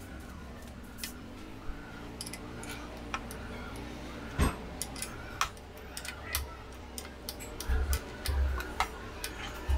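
Scattered clicks and light taps of a small hand tool and loose screws on the Triumph Tiger 900 Rally Pro's seat-lock panel as the lock is unscrewed, with one sharper click about halfway and a few dull knocks near the end.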